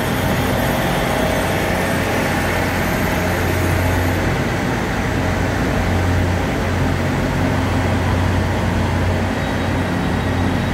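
The diesel engines of a DR3100 diesel multiple unit running with a steady low hum.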